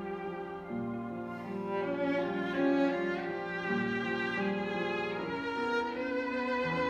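Violin and piano playing a contemporary classical piece: the violin plays quick rising runs and held notes over low sustained piano chords that change about every three seconds.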